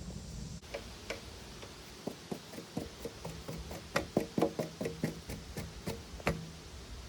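Irregular sharp knocks and clicks, coming more often from about two seconds in, over a faint low hum.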